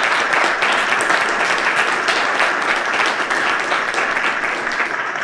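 Audience applauding: many hands clapping at once, easing off near the end.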